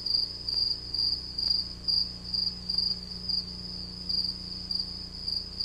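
Cricket chirping steadily, a high trill pulsing about twice a second, over a low steady hum.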